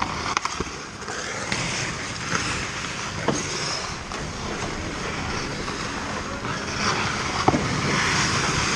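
Ice hockey play close by: skate blades scraping and carving on the ice, with a few sharp clacks of sticks and puck. The scraping grows louder near the end as players crowd the crease.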